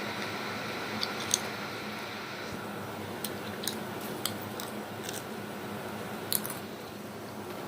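Chips being eaten: a person crunching and chewing, with scattered sharp crunches throughout, the loudest about a second in and near the end, over a steady low background hum.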